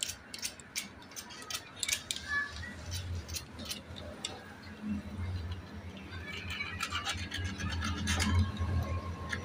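Clicks and light metallic rattles of a Mahindra Scorpio's cable-type power window regulator, its rail, cable and pulley, being handled and fitted together by hand. A low hum comes in about three seconds in.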